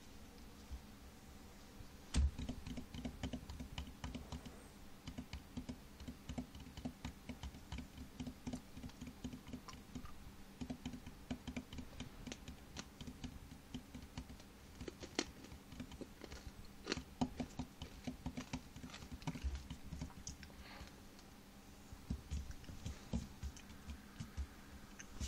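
Rapid, irregular light taps and clicks, starting with a sharper knock about two seconds in and pausing briefly near the end before starting again.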